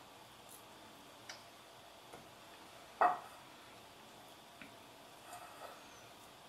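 A few light taps and clicks as hands work dough against a glass mixing bowl, with one louder knock about three seconds in that rings briefly.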